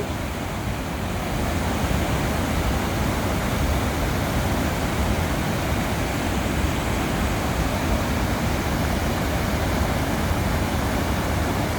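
Water pouring over a dam spillway: a steady, unbroken rush of falling water.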